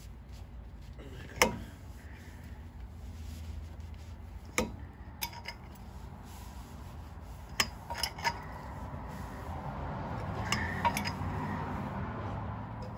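Metal clinks and clanks of a 22 mm socket and breaker bar with a pipe cheater bar being fitted and worked on the strut's lower mounting bolt. One sharp clank comes about a second and a half in, then scattered lighter clinks.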